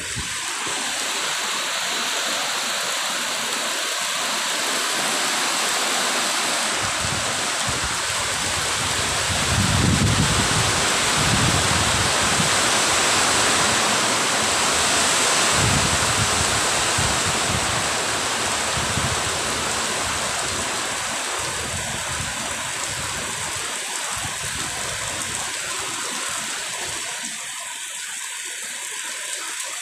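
Heavy rain pouring down and streaming off a roof's edge, with wind gusts rumbling on the microphone, strongest through the middle.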